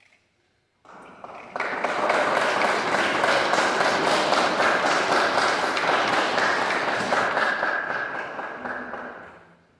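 Congregation applauding: many hands clapping, starting about a second in, quickly building to a full round of applause, then dying away near the end.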